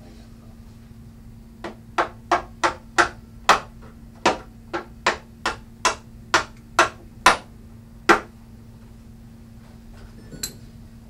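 Hammer striking the end of a hardwood bed rail where it joins the loft bed's end post, about fifteen sharp blows at roughly two a second, driving the rail home. A faint click follows near the end.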